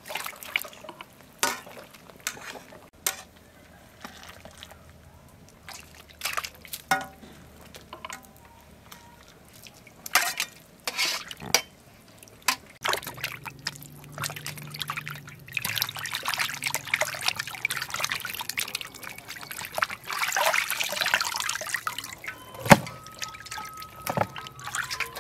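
Water splashing and dripping as pork offal is stirred and scooped out of a pot of hot water with a metal ladle: separate splashes at first, then several seconds of continuous trickling and pouring. A single sharp clank comes near the end.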